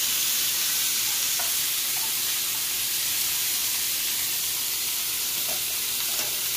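Chicken tenders sizzling steadily as they pan-sear in oil in a skillet, with a few light knocks of a utensil stirring pasta in a pot.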